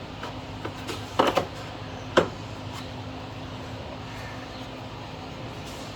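Metal hand tools clinking as sockets are swapped and picked from a set: a quick cluster of sharp clinks about a second in, then a single louder clink that rings briefly just after two seconds, over a steady low hum.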